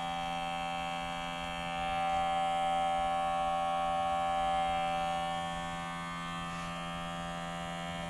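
Electric air pump of an automotive smoke tester running steadily, a buzzing hum with a few fixed tones that swells slightly in the middle, as it pushes smoke into the intake during a vacuum leak test.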